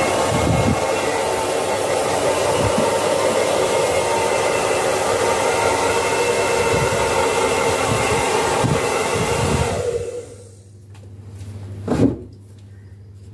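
Handheld hair dryer blowing steadily as it dries a dog's coat after a bath, switched off about ten seconds in. A single knock follows about two seconds later.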